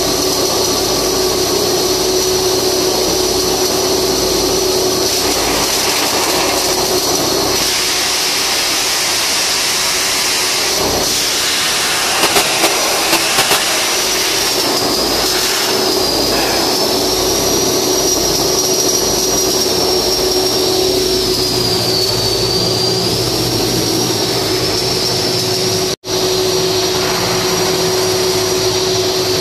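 Flux-cored arc welding with a steady hiss, heard over a constant machine drone and a steady high whine. The sound breaks off for an instant near the end.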